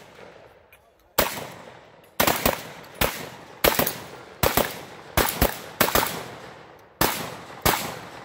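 A shotgun firing about a dozen rapid shots, some in quick pairs a quarter-second apart and some singly, each shot trailing off in a short echo.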